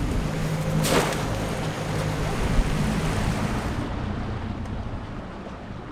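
A boat motor hums steadily under wind and water noise, with a sharp splash about a second in as a wire crab trap goes over the side. The noise fades toward the end.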